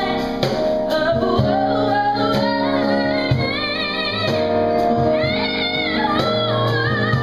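A woman singing into a microphone, her held notes wavering with vibrato, over band accompaniment with a steady percussion beat.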